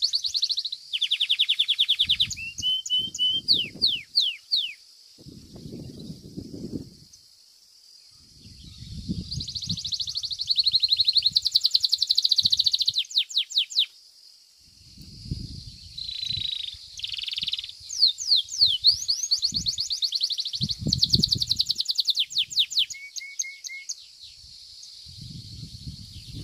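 Domestic 'Belga' canary singing in bursts of fast rolling trills and repeated chattering phrases, with short pauses between them. Patches of low rumbling come and go underneath.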